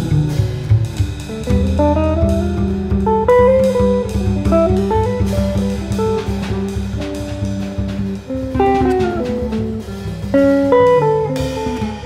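Jazz trio of guitar, bass and drums playing: an archtop guitar plays melodic runs that climb and fall over held bass notes, with the drum kit played with sticks on cymbals and snare.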